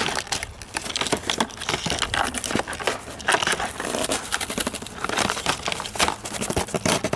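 Clear plastic toy packaging crinkling and crackling in irregular sharp crackles as it is handled and pulled free from a cardboard box.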